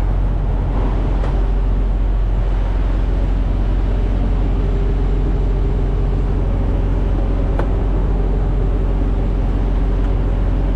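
Semi-truck diesel engines idling: a loud, steady low rumble with a constant hum. A single short click about three-quarters of the way through.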